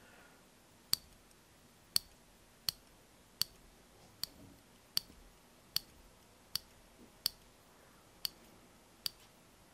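Scissors snipping through soft bun dough, a sharp click of the blades closing roughly once a second, about a dozen cuts in a row.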